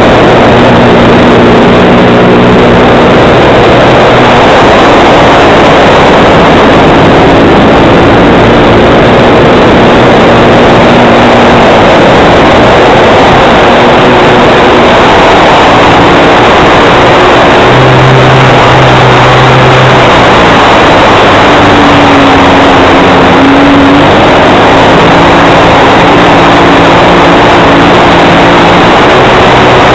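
OS FS 91 four-stroke glow engine running on an RC plane, heard very loud and overloaded from a wing-mounted camera. Its engine note shifts up and down a few times with throttle changes.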